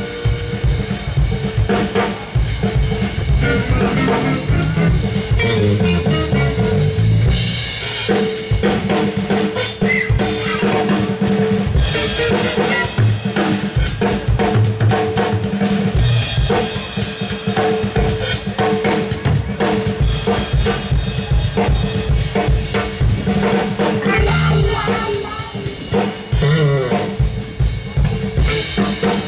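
Live instrumental jazz-fusion trio playing: a drum kit with busy snare, rimshots and bass drum over an electric bass line, with electric guitar holding long notes.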